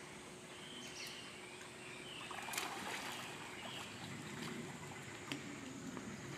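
Light water splashing and trickling, stirred by a swimming baby monkey, busiest about two and a half to three and a half seconds in. There is a sharp click about two and a half seconds in and another after about five seconds, plus a few faint high squeaks.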